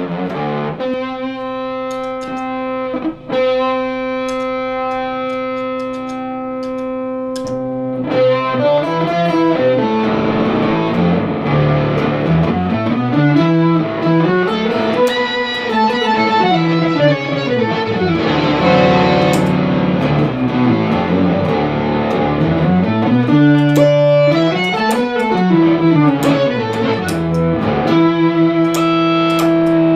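Electric guitar played through an Electro-Harmonix Super Ego+ synth pedal: a frozen chord is held steady for the first eight seconds or so, then the notes slide up and down in pitch in slow arches, with more guitar notes plucked over them.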